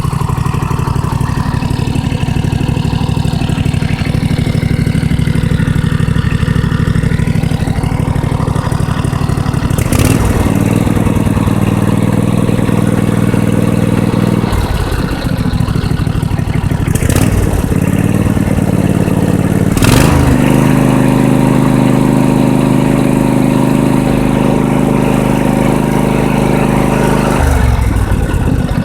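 Toro riding mower's 14 hp Intek engine running, its valves freshly adjusted. For the first ten seconds it runs steadily, then the engine speed steps up and down several times as the throttle is moved, with short clicks at some of the changes.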